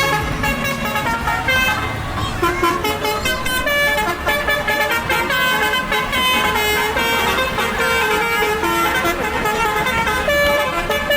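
Multi-tone bus 'telolet' horn playing a quick melody of changing notes, over a steady low rumble.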